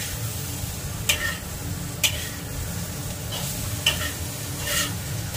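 Tempeh and petai beans sizzling in a wok while a metal spatula stirs them, scraping and clinking against the wok about five times, roughly once a second.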